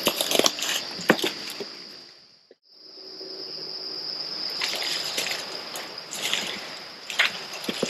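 Insects trilling steadily at a high pitch, with footsteps and rustling through dry leaves and brush. The sound cuts out briefly about two and a half seconds in.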